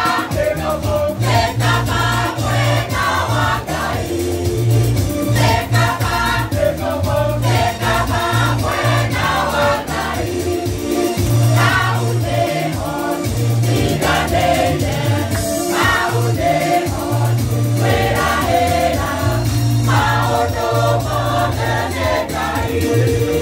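A choir singing an upbeat gospel song over a backing of steady bass and beat.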